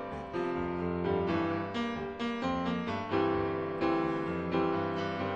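Solo piano music: struck notes and chords in a flowing line, a new one about every half second, each left ringing.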